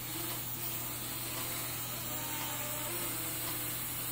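Syma X11 mini quadcopter's small motors and propellers running steadily in flight, a thin mosquito-like buzz over a steady hiss, with its battery nearly flat.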